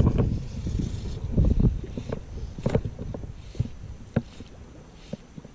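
Wind buffeting the microphone in a low rumble that eases off after about two seconds. Scattered light clicks and rustles of the fly rod and line being handled run through it.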